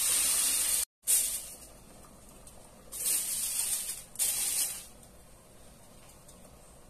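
Water pouring from a cup into a pot of rice, a steady hiss that cuts off abruptly about a second in. Then aluminium foil crinkling in three short bursts as it is wrapped around the cooking pot.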